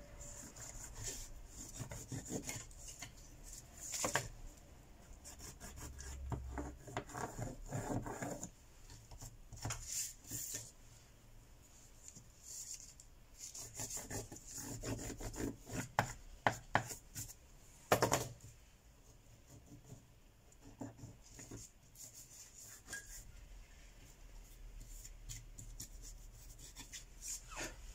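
Tissue and fingers rubbing and scraping over a smartphone's bare mid-frame, cleaning off adhesive residue left by the old screen: irregular scratchy strokes with light clicks, and a sharper knock about 18 seconds in.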